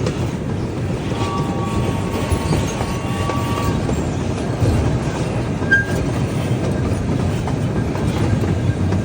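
Park tour train running along its track, heard from aboard: a steady rumble and clatter of wheels on rails, with a faint thin squeal for a couple of seconds about a second in.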